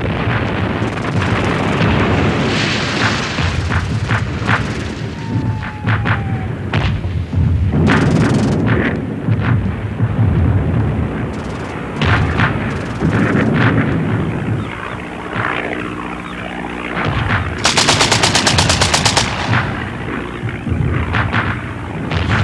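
Battle sound effects of gunfire and shell explosions: scattered shots and booms, with a short falling whistle about a quarter of the way in. A rapid machine-gun burst of roughly eight rounds a second comes about three-quarters of the way through.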